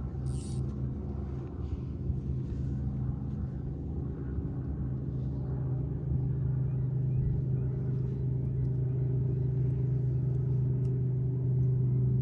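An engine droning steadily at a low pitch, growing louder about halfway through.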